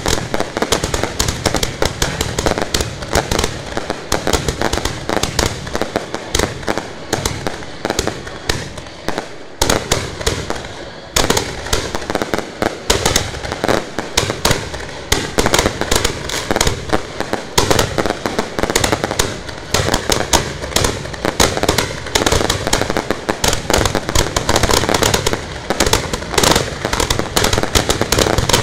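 Fireworks fired from racks on the ground at close range: a dense, continuous barrage of rapid bangs and crackling, many reports a second, with a brief lull about ten seconds in.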